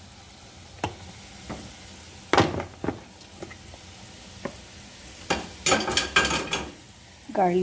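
Spoon and bowl knocking and clattering as sliced potatoes are stirred and tossed in a dry coating of corn flour and all-purpose flour. There are scattered single knocks, a louder one about two and a half seconds in, and a dense burst of clattering a little past the middle that lasts about a second.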